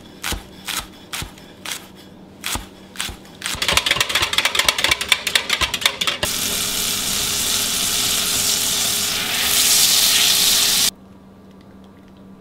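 A knife chopping green onions on a wooden cutting board, about two strokes a second. Then a wire whisk beats rapidly in a glass measuring cup, and then a steady frying sizzle, which cuts off suddenly near the end.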